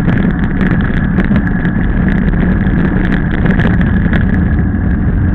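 Mountain bike speeding downhill on asphalt: a loud, steady rush of wind and tyre noise on the bike-mounted camera, with frequent small clicks and rattles from the bike over the rough surface.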